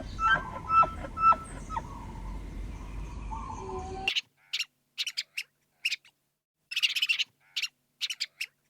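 Short, whistle-like animal calls over a steady hiss, then about four seconds in an abrupt cut to near quiet broken by clusters of quick, high bird chirps.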